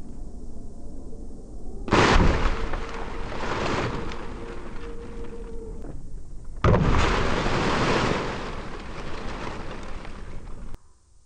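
Two sudden loud noisy bursts, about five seconds apart, each fading slowly over a few seconds; the audio is slowed to a fifth of normal speed, which stretches and deepens them.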